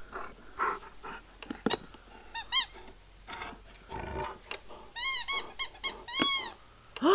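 Dog whining and yelping in short, high-pitched cries: a couple at first, then a quick run of them about five seconds in, and a louder, lower falling whine at the very end, among scattered light rustles and clicks.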